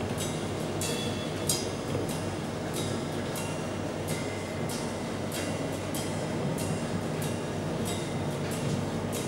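Live band playing softly: light percussion strokes, roughly two a second, over a low, steady sustained bass.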